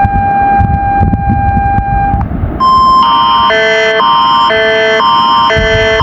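Canadian Alert Ready emergency alert attention signal: after a steady tone for about two seconds and a brief higher tone, two clashing chords alternate about twice a second from about three seconds in, over a low rumble.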